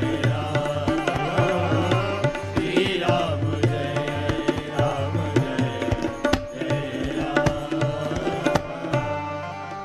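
Indian devotional music: a tabla plays a steady rhythm under held melodic notes, fading out near the end.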